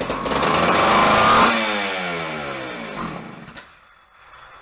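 Homelite Super XL Automatic chainsaw's two-stroke engine catching on a pull of the starter, revving for about a second and a half, then falling in pitch as it winds down and dies about three and a half seconds in: a brief start that does not keep running.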